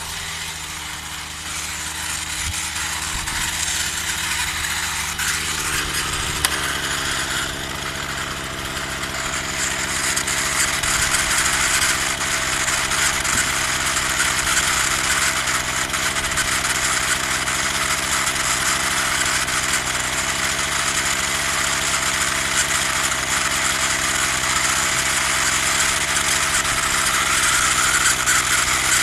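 Partner 340S two-stroke chainsaw engine running steadily at idle, growing a little louder about ten seconds in.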